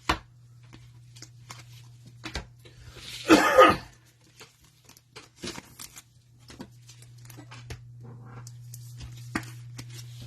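Plastic wrapper of a trading card hanger pack being torn open, with one loud rip about three and a half seconds in, among scattered clicks and crinkles of cards and packaging being handled. A steady low hum runs underneath.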